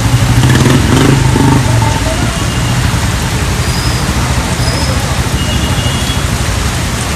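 Steady rush of heavy rain and running water on a flooded street, with a motor vehicle's engine rumbling over it for the first couple of seconds before easing off.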